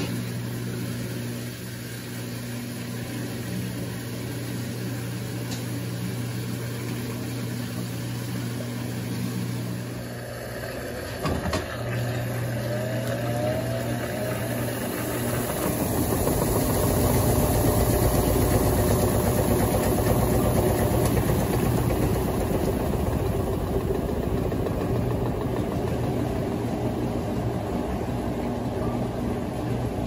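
Electrolux Turbo Economia LTD06 top-load washing machine running mid-cycle. It starts with a steady low hum, a knock comes about eleven seconds in, and from about sixteen seconds a louder, denser rumbling churn builds and holds.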